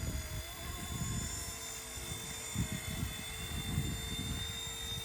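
RC Era C189 MD500 remote-control helicopter in flight, its motor and rotor making a steady whine that rises slightly in pitch early on, with wind gusting on the microphone.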